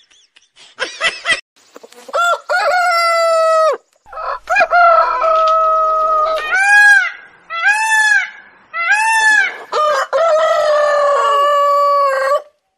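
Rooster crowing twice, loud; the second crow is three short arching notes followed by a long held final note.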